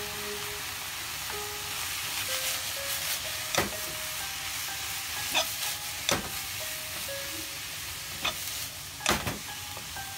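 Shredded green papaya and pork sizzling steadily in a frying pan as they are stir-fried, with about six sharp clacks of a wooden spatula against the pan from a few seconds in.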